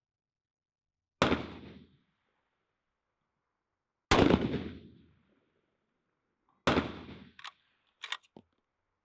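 Three rifle shots from a 6.5 Creedmoor bolt-action rifle, about two and a half to three seconds apart, each a sharp crack that dies away within a second. A few short, faint clicks follow in the last two seconds.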